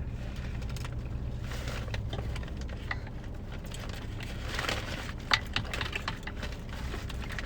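Eating sounds: crunchy chewing and small clicks and crackles of handling food, over the steady low hum of a parked car's running engine.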